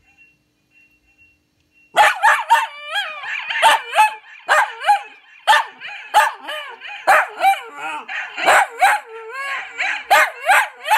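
Small dog barking and yelping rapidly into a microphone, some calls gliding up and down like short howls, heard through an echo effect. The barking starts suddenly about two seconds in and keeps going, about two or three barks a second.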